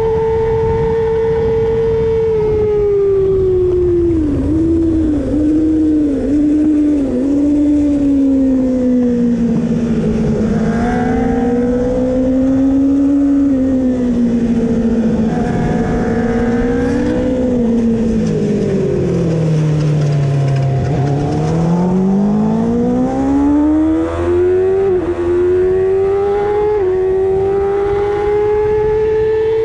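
Kawasaki ZX-6R 636's inline-four engine at high revs, then dropping through several quick downshifts with short throttle blips, working through the middle revs and falling to its lowest revs about two-thirds of the way in, then climbing through upshifts back to high revs.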